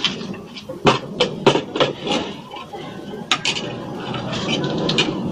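Plates and cutlery clinking and knocking as they are set down on a table: a quick run of sharp clinks in the first two seconds and another about three seconds in.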